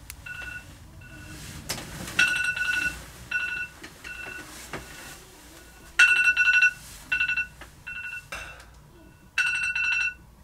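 Phone alarm ringing: a short electronic beeping pattern, a longer run of beeps followed by shorter ones, repeating about every three and a half to four seconds.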